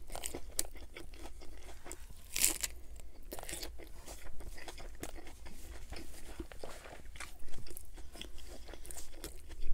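Close-miked biting and chewing of a lettuce-wrapped burger: crisp lettuce crunching and wet chewing clicks, with a couple of louder crunches a few seconds in.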